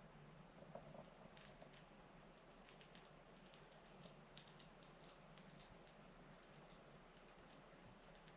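Faint, irregular rapid clicks and ticks of a squirrel gnawing at food, over a faint low hum.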